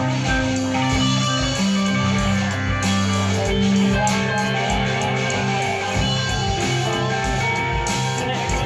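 Live band playing an instrumental passage: electric guitars over a low bass line and a steady beat.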